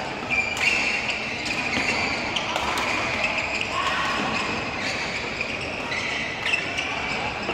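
Badminton doubles rally in a large hall: sharp racket-on-shuttlecock hits, with shoes squeaking on the court mat.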